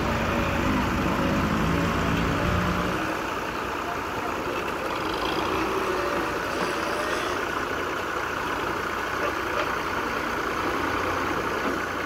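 Tractor diesel engines running during a chained tow to pull a stuck front-loader tractor out of a ditch. A deep low rumble eases about three seconds in, leaving a steadier engine sound.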